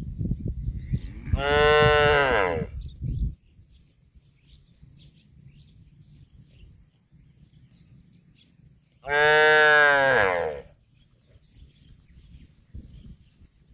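A cow mooing twice: two long calls about a second and a half each, dropping in pitch at the end, some seven seconds apart. A low rumble runs under the first call.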